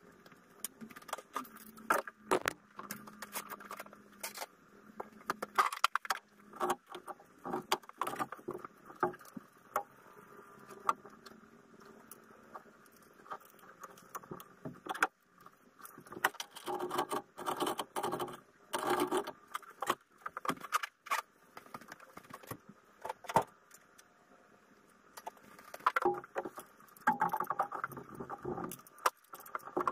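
Metal hand tools and parts clinking and clattering against an engine during hand work, an irregular run of sharp clicks and clanks with short pauses between clusters.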